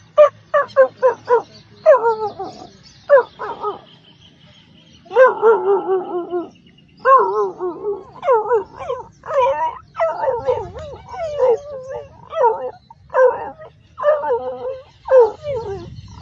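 A dog vocalizing in a run of wavering, whiny calls: a quick string of short yips first, then after a brief pause longer warbling whine-howls, like a dog 'talking'.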